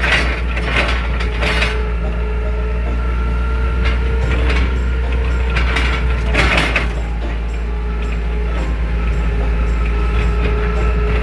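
Diesel forklift engine running steadily as the forklift drives along, with the mast, chains and forks rattling and clanking a few times over bumps.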